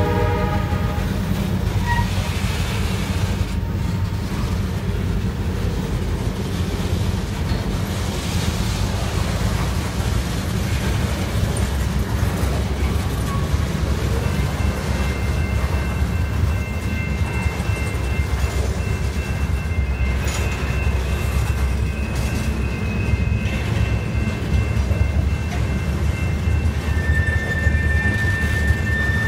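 Wheeling & Lake Erie freight train's hopper cars rolling past, a steady low rumble of wheels on rail. The tail of the locomotive's horn ends about a second in, and from about halfway on a thin, steady wheel squeal rings over the rumble, stronger near the end.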